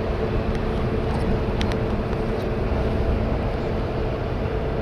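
Steady low drone of the ferry Pride of Rotterdam's machinery running at the berth, a rumble with a steady hum in it. A couple of faint clicks come about a second and a half in.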